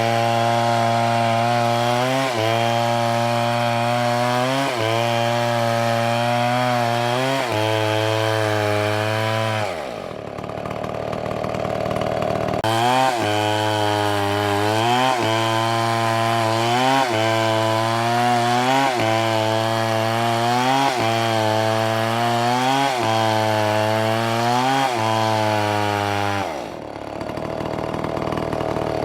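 Chainsaw running at high revs while cutting wood, its pitch sagging and recovering in a regular cycle about every two seconds as the chain bites. About ten seconds in the revs fall away to a lower, rougher note for a couple of seconds before the saw picks up and cuts again, and the revs drop off once more near the end.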